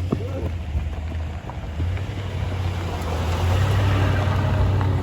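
Car engine running with road noise, a steady low rumble, with wind buffeting the microphone.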